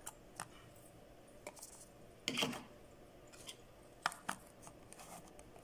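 Faint scattered clicks and taps of Arduino Uno circuit boards and jumper-wire leads being handled and set down, with a slightly louder knock a little over two seconds in.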